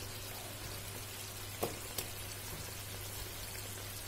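Sweet-and-sour sauce liquid with vegetables boiling in a pot, a steady bubbling hiss over a low hum, with two small clicks near the middle.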